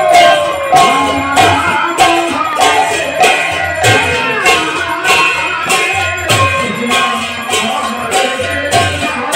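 Kirtan devotional music: barrel drums (khol/mridanga) and small hand cymbals keep a steady beat of about two cymbal strokes a second, with a singing voice over them.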